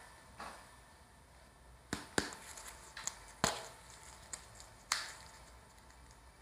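About half a dozen short, sharp clicks and taps from a gloved hand handling a plastic squeeze bottle of syrup, with a close pair about two seconds in and the loudest a little after three seconds.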